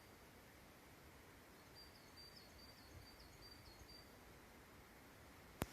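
Quiet outdoor ambience with a faint bird repeating a quick series of short, high chirps in the middle, and a single sharp click right at the end.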